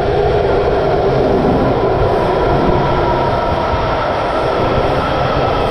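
Washington Metro 7000-series subway train pulling into an underground station and running along the platform: a steady, loud rumble of the passing cars with a held, high whine above it.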